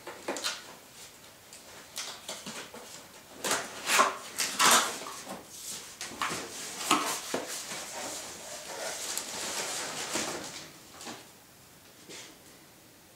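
A cardboard box being opened by hand: sharp rips and pops as the flaps are pulled free, then a few seconds of cardboard rustling and scraping as the packing inside is handled.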